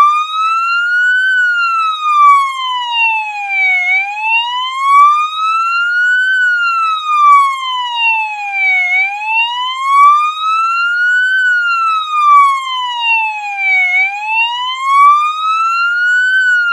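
Police siren wailing: one tone slides steadily up and then back down, each rise and each fall taking about two and a half seconds, repeating about three and a half times with nothing else heard behind it.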